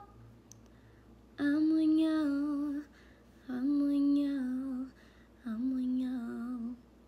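A girl singing unaccompanied: three long held phrases with short pauses between them, each sung on a sustained note that drops a step near its end.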